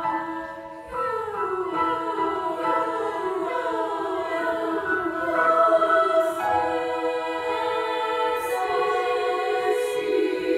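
Youth treble choir singing in harmony. Just before a second in there is a short breath, then the voices run in falling phrases, and near the end they settle into a long held chord.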